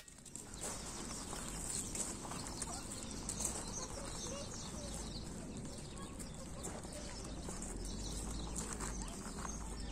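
Lakeshore ambience: a steady low rumble and hiss with faint, scattered bird calls.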